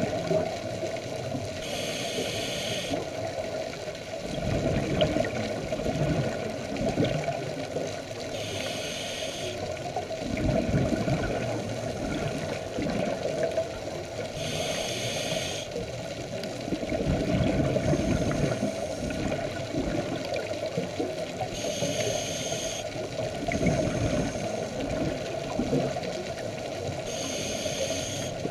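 Scuba diver breathing through a regulator underwater. A short hiss of inhalation comes about every six seconds, and each is followed by the low bubbling rush of exhaled bubbles, over a steady low hum.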